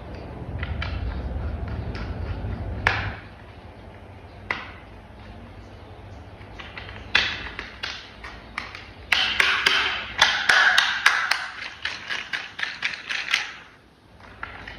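Plastic toy-vehicle parts being handled and fitted together: a low rubbing rumble at first, a few single clicks, then a rapid run of clicks and taps for several seconds near the end.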